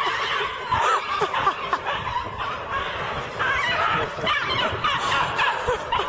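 Many birds calling over each other without a break: short overlapping calls, many of them falling in pitch.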